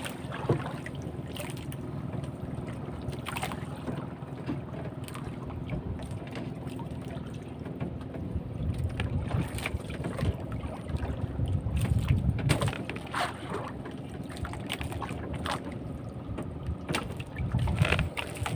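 Motorised outrigger fishing boat's engine running steadily, with occasional sharp knocks and clicks and gusts of wind on the microphone.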